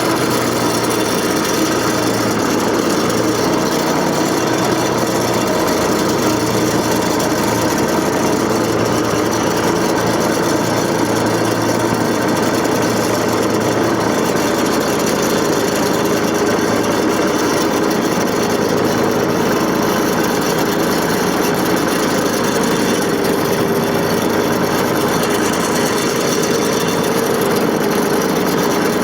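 John Deere 485A backhoe's engine running steadily.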